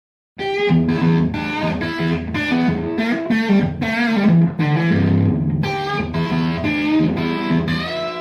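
Intro music played on electric guitar with some distortion, starting about a third of a second in.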